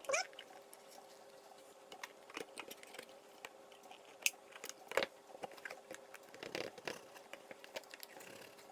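Scattered small clicks and taps of hands handling an action camera's case while trying to work it open.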